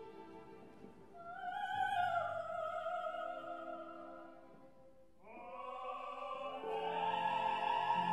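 Operatic soprano and tenor singing a duet over soft held orchestral strings. A first sung phrase rises about a second in; after a brief lull a second phrase climbs into a long, loud high note with vibrato near the end.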